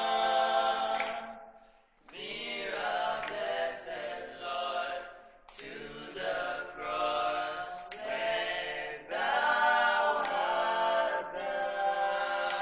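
Unaccompanied singing: voices sing in harmony in long, held phrases, with a short break about two seconds in.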